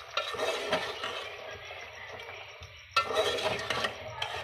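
Metal spoon stirring chicken pieces in a wet yogurt masala in a metal pot, clinking and scraping against the pot's sides and bottom, with a sudden louder stretch from about three seconds in.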